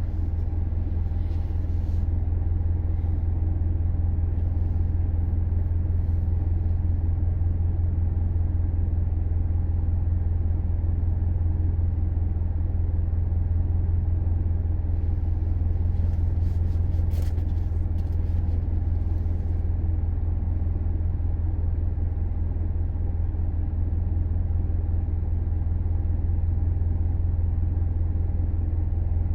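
A Subaru Levorg being driven, with a steady low drone throughout, which the owner records as an abnormal noise while driving. A few faint clicks come near the start and again about halfway through.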